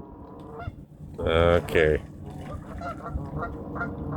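A flock of geese honking, a rapid string of short calls, several a second, that starts about two seconds in.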